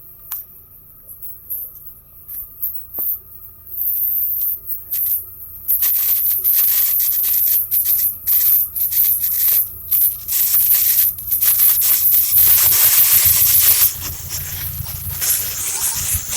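Storm wind hissing in gusts, turning continuous and louder about six seconds in.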